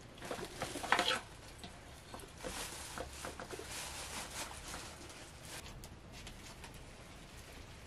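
Knife cutting and handling raw meat over a metal bowl: soft scraping and rustling, with a cluster of sharper clicks about a second in.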